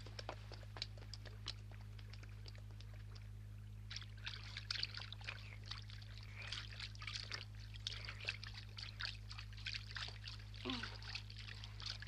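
Drinking sounds from a pool: water being lapped and slurped, many small wet ticks thickening from about four seconds in. Before that there are only sparse light clicks, all over a steady low hum.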